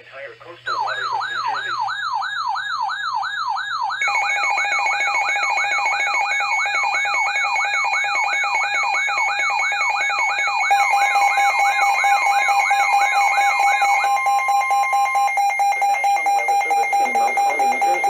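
Several weather alert radios sounding their alarms at once: a warbling siren tone sweeping up and down about twice a second, joined about 4 s in by steady alarm tones and near the middle by a further steady tone. The warble stops about 14 s in while the steady tones carry on until just before the end.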